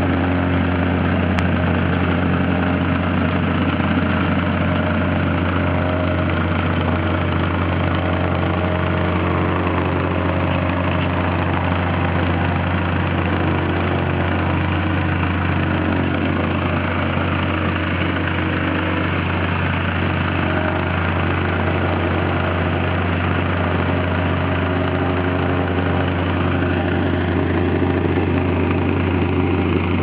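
Engine-driven vibratory plate compactor running steadily while it is pushed across the ground, a constant low hum with a pulsing rattle of the vibrating plate.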